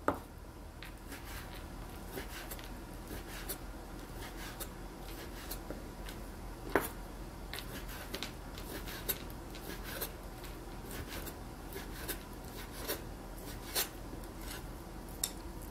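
A kitchen knife cutting raw pork into small cubes on a cutting board: irregular light knocks and clicks as the blade goes through the meat and meets the board, with a few sharper knocks.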